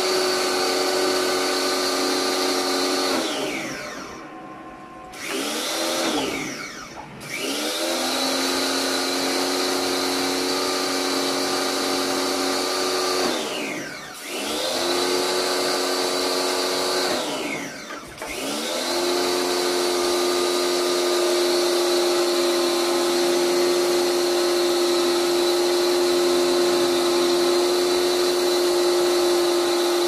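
Electric pressure washer running, a steady motor-and-pump whine with the hiss of the spray. Four times the whine sinks in pitch and climbs back up, as the motor slows and picks up again with the spray-gun trigger let go and pulled.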